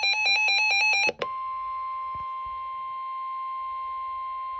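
Emergency Alert System alert tones: a fast electronic warble between two pitches cuts off about a second in, then a single steady alert tone begins and holds evenly, the kind of 1050 Hz warning tone that NOAA Weather Radio sends before a warning message.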